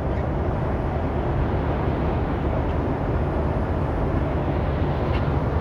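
Steady road noise inside a moving vehicle's cabin on a snowy highway: engine and tyre noise, heaviest at the low end.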